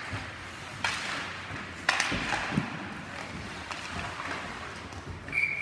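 Ice hockey game play in a rink: steady rink noise with sharp knocks about one and two seconds in. A steady high whistle tone starts near the end.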